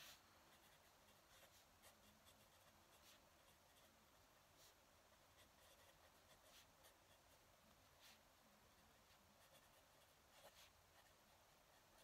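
Faint scratching of a fountain pen nib on a paper pad, in short irregular strokes, with a slightly louder rustle of hand on paper right at the start.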